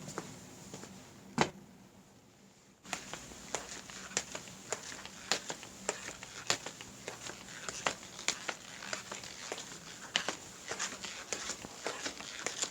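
Footsteps: one sharp, loud step about a second and a half in, a short lull, then a long run of steps at about two or three a second, uneven in spacing and strength.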